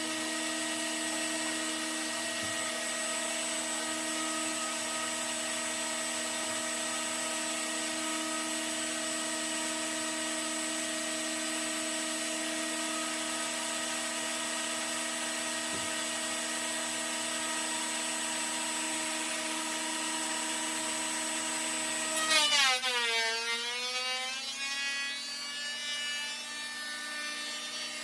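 Ridgid 13-inch benchtop thickness planer running with a steady, high motor whine. About 22 seconds in there is a loud burst as the pitch drops sharply and then climbs back, the motor bogging down under load and recovering.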